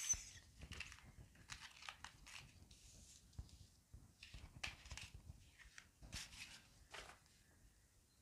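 Tarot cards being gathered up and shuffled by hand: faint, irregular rustles and slides of card stock.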